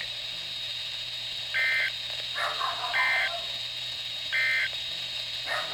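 Emergency Alert System end-of-message data bursts on NOAA Weather Radio: three short, identical buzzy digital bursts about 1.4 s apart, marking the end of the alert. A steady low hum and hiss from the radio lie beneath them.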